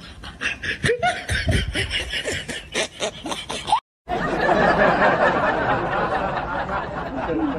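Snickering laughter in quick short bursts, then after a sudden cut about four seconds in, a denser, steadier stretch of laughter.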